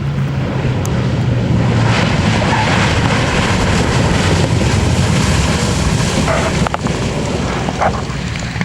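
Consolidated PBY Catalina flying boat's twin radial engines running as it flies past, growing louder through the middle and easing off near the end.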